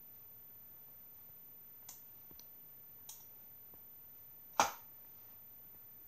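Four short, sharp taps on a Märklin Central Station 3 touchscreen, spread over about three seconds; the last, about three quarters of the way in, is much the loudest.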